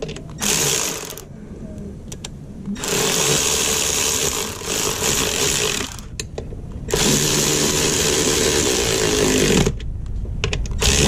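A small motor-driven tool runs in three bursts: a short one near the start, then two of about three seconds each.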